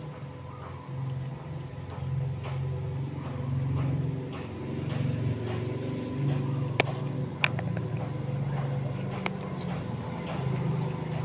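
Cat chewing and crunching cucumber, with irregular crunchy clicks, a few sharp ones in the second half, over a steady low hum.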